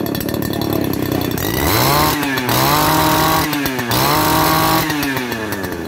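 Small Robin two-stroke engine on a portable water pump running just after a test start, revved up three times by hand on the throttle, each rev held for about a second before dropping back toward idle.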